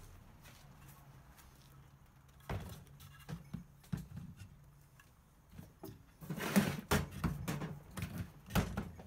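Scooter motor wires and plastic connectors knocking, clicking and scraping as the rear hub motor's cable is pulled through a hole in the deck. It is quiet at first; the knocks start a couple of seconds in, with a louder scraping clatter about two-thirds of the way through.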